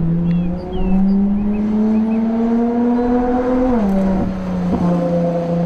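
Race car engine sound, revving with its pitch climbing slowly for nearly four seconds, then dropping sharply and holding steady.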